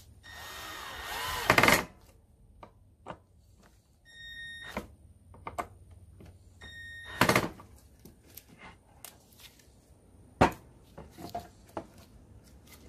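Cordless drill driving screws through a metal corner hinge into wood: two short runs of the motor, the first rising in loudness, each ending in a sharp crack as the screw seats. Small taps follow, and a single sharp knock comes near the end.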